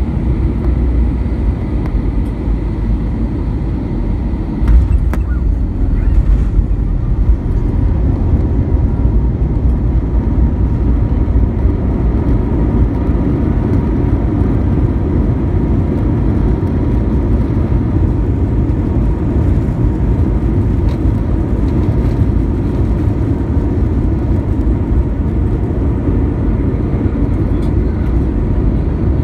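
Cabin noise of an Airbus A320 on its landing run, heard inside the cabin over the wing: a steady low rumble of the jet engines and the wheels on the runway. About five seconds in there is a thump, and after it the rumble is louder.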